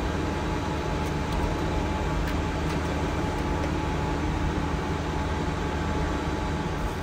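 Steady flight-deck noise of a Boeing 747-400 taxiing after landing: a constant low hum and air hiss with a faint steady whine.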